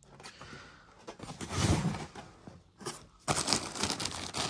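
Rummaging through a cardboard box: rustling, crinkling and small knocks from the packing and its contents, getting busier and louder after about three seconds.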